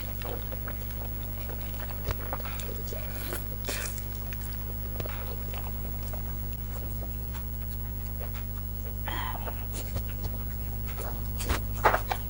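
Eating at a table: occasional light clicks and clinks of cutlery on dishes, with a small cluster of clinks near the end, over a steady low hum.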